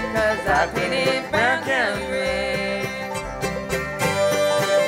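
Bluegrass band playing live on banjo, mandolin, acoustic guitars, upright bass and fiddle.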